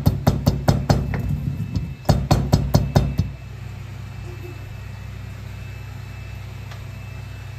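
Heavy stone pestle pounding in a stone mortar: quick repeated knocks, about five a second, in two runs with a short break, stopping a little after three seconds in. A steady low hum continues underneath.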